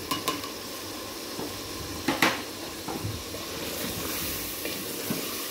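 Chopped tomatoes sizzling in the hot mutton and oil of a pressure cooker while a wooden spoon stirs and scrapes, with a few sharp knocks against the pot, the loudest about two seconds in.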